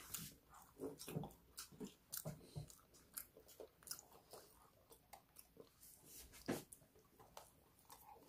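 Faint close-up chewing of toasted garlic bread: irregular small crunches and mouth clicks as the crust is bitten and chewed.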